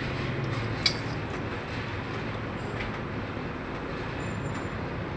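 Steady rumbling background noise, with one sharp click about a second in.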